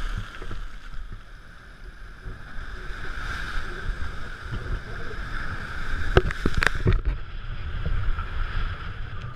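Ocean surf breaking over rocks, a steady rushing wash with wind rumbling on the camera microphone. Two sharp knocks come a little past the middle.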